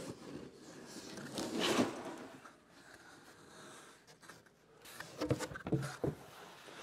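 Cardboard shipping box being opened by hand: the lid and flaps rub and scrape as it is lifted about a second and a half in, followed by a few light knocks of cardboard near the end.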